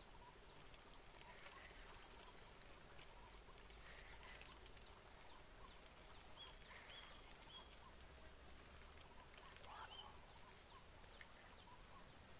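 Insects trilling steadily in a dense, high-pitched chorus, with a few faint short chirps.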